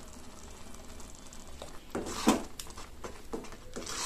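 Spatula stirring thick, sticky gooseberry halwa in a nonstick pan as ghee is worked in. A few short scraping strokes, the loudest about two seconds in, over a faint low hum.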